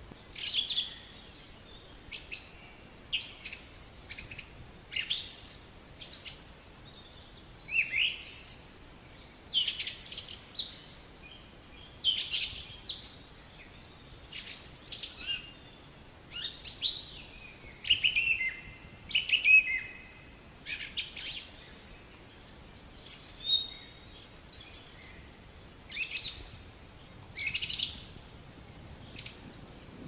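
Black-capped chickadee calling in short, high chirping phrases about once a second, many of them sweeping down in pitch.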